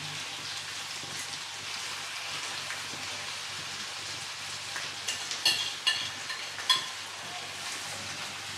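Mackerel frying in a pan, a steady sizzle, with a few light clinks of a utensil about five to seven seconds in.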